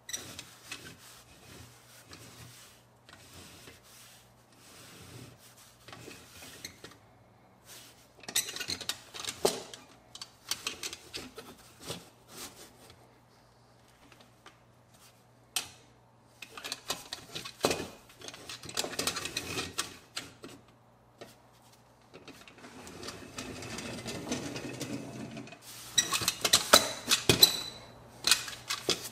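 A small pressed-steel toy truck handled and turned over by gloved hands on a paper-covered bench: irregular clicks, rattles and rubbing, busiest near the end, over a steady low hum.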